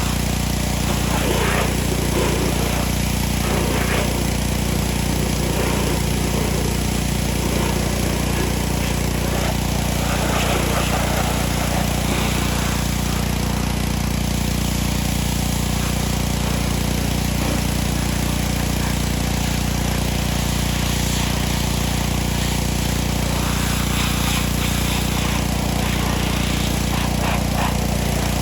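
Small-engine pressure washer running steadily, with the hiss of its spray coming and going as the water is played over the cart.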